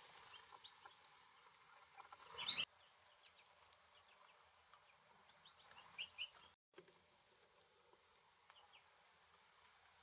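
Small feeder songbirds giving short, high chips and calls, with a louder burst about two and a half seconds in and another cluster about six seconds in.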